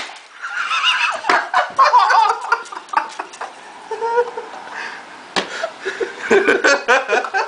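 Excited laughter in two bouts, with a couple of sharp knocks in between.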